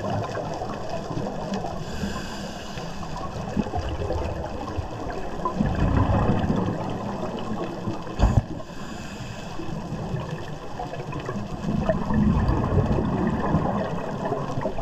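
Scuba diver's exhaled bubbles underwater, heard as surges of bubbling noise about every six seconds, with one sharp knock a little past halfway.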